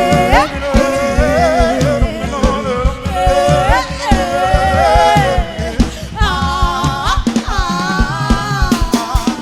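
Live gospel worship music: a voice sings long, sliding melodic lines over a band with a steady drum beat and bass.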